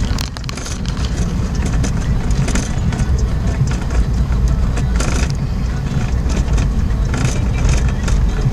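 Car driving over a rough unpaved dirt and gravel road, heard from inside the cabin: a steady low rumble with scattered clicks and rattles from stones and bumps under the tyres.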